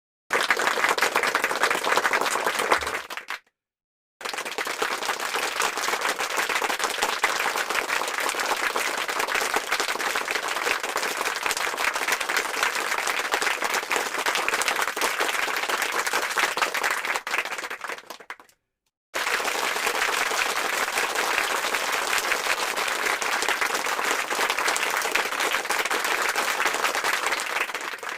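Applause sound effect: a crowd clapping in three separate clips, a short one of about three seconds, then one of about fourteen seconds and one of about nine. Each clip ends abruptly in a moment of silence.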